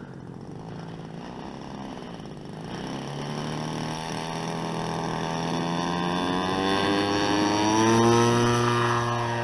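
DLE 30 single-cylinder two-stroke gasoline engine and propeller of a model Piper Cub, opened up for the takeoff roll. Its pitch and loudness climb steadily from about three seconds in, peaking near the end.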